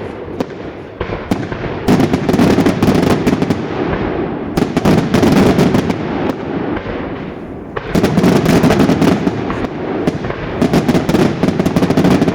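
Daytime fireworks display: fast, unbroken volleys of bangs and crackles, swelling into louder surges about two seconds in and again about eight seconds in.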